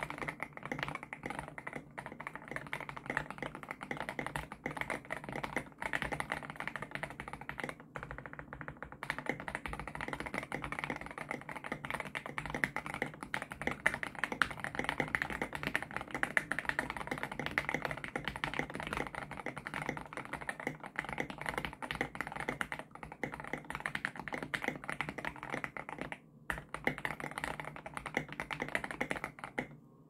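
Fast, continuous typing on a KBD67 Lite R1 mechanical keyboard with H1 switches, SA profile keycaps, a PE foam mod and case foam: dense keystroke clacks that sound like a ping pong ball. The typing breaks off briefly about 8 and 26 seconds in.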